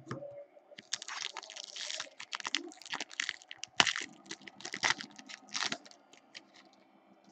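Foil wrapper of an Upper Deck Ice hockey card pack crinkling and tearing as it is ripped open and the cards are pulled out: a quick run of sharp crackles from about a second in, dying away near the end.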